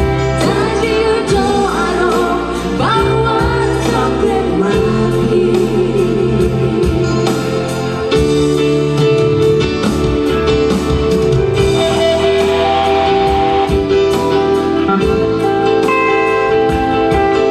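Live duet singing over electronic keyboard accompaniment. The voices drop out a few seconds in, and the keyboard carries on alone in an instrumental break of held notes.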